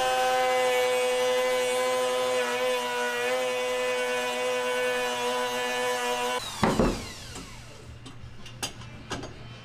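Compact router running with a steady high whine as it cuts a hinge recess into a wooden frame, its pitch wavering briefly as it bites. About six and a half seconds in it is switched off and its whine falls away as the motor spins down, with a short loud clatter as it is handled, then a few faint clicks.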